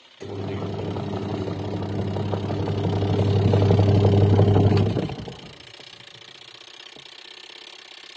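Washing machine's newly fitted wash motor running: a steady electric hum that starts, grows louder for about five seconds, then cuts out and winds down. The motor is running properly under load now that it has been replaced.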